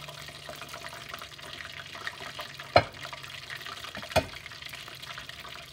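Breaded cod fillet frying in hot oil in a stainless steel skillet: a steady crackling sizzle of bubbling grease. Two sharp knocks cut through it, about three seconds in and again a second and a half later.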